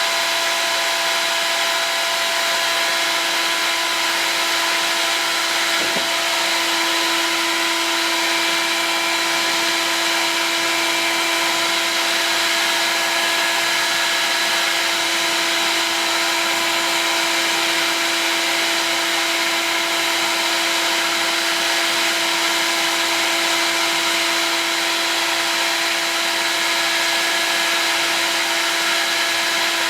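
Heat gun blowing steadily, a hiss of air over a constant motor whine, heating acrylic tube to soften it for bending.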